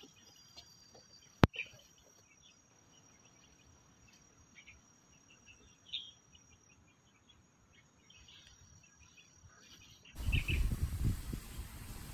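Faint field ambience: insects trilling on one steady high note, with scattered short bird chirps and a single sharp click about a second and a half in. About ten seconds in, the insects give way to a louder, gusty low noise.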